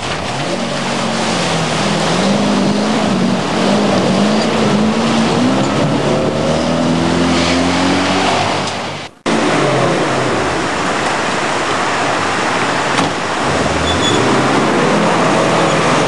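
Range Rover Classic's 4.7-litre engine revving hard under load, its pitch wavering and climbing over several seconds. It breaks off abruptly about nine seconds in, then the engine is heard again under load.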